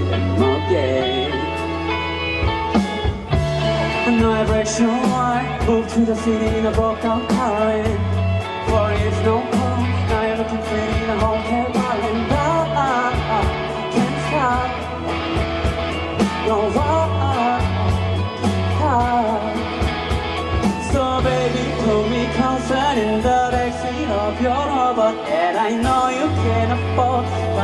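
Live rock band playing a song: a lead singer over electric guitars, bass guitar and a drum kit, with held bass notes and a steady drum beat under the vocal line.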